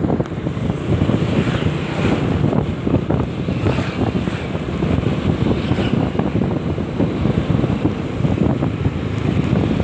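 Wind buffeting the phone's microphone on a moving motorbike: a loud, continuous, gusty rumble that covers the ride's other sounds.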